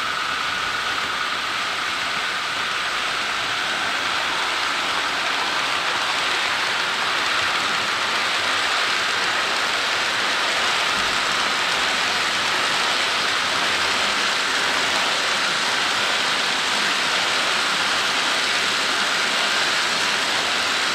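Model train rolling along the layout's track: a steady, even hiss of wheels on rail with a faint steady whine.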